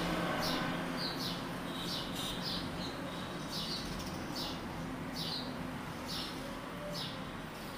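Small birds chirping in short, high, slightly falling notes, about two a second, over a faint steady background hiss.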